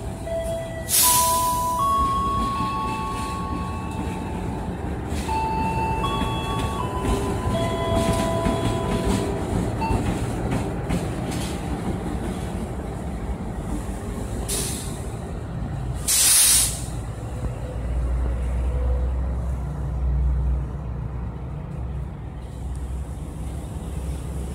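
Diesel-electric locomotive running through a station, with the rumble of its engine and wheels and a stronger low engine rumble near the end. Two short, loud air hisses come about a second in and again around sixteen seconds in, and a faint tune of held tones plays during the first half.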